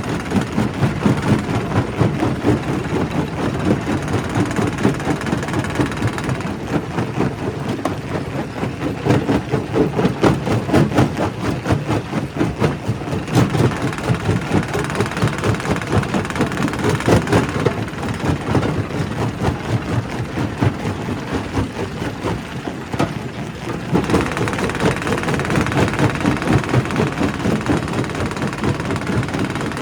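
Primary rock crusher crushing quarry stone: a steady heavy machine rumble with a constant dense clatter of rock breaking, swelling and easing in uneven surges.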